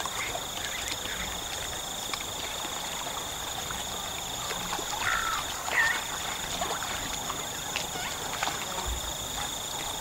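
A steady high-pitched insect chorus, with two short animal calls about five and six seconds in.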